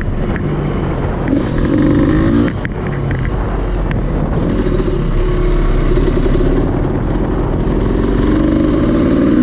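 Dirt bike engine running under way, revving up and easing off several times as the throttle is worked.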